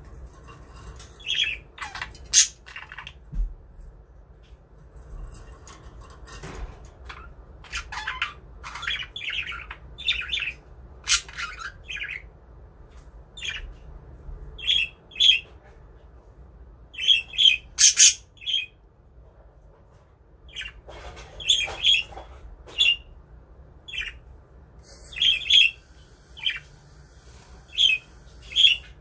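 Pet budgerigars chirping and squawking in short, irregular calls.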